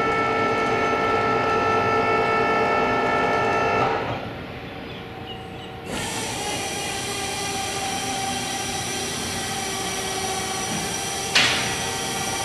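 A steady mechanical drone with several held tones, which drops away about four seconds in and comes back about two seconds later as a hissier, even hum. A sharp click near the end.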